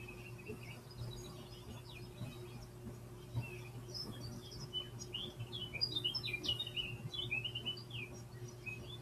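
Recorded birdsong from a YouTube bird video playing on a computer: many quick chirps and tweets, busier from about four seconds in, over a steady low hum.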